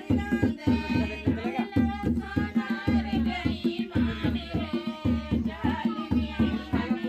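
Women singing a folk song together to a steady dholak drum beat.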